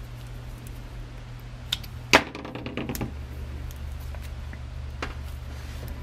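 Handling noises from a Neutrik PowerCON TRUE1 plastic cable connector and a Torx screwdriver: a few small clicks, with one sharp click about two seconds in followed by a brief clatter, over a steady low hum.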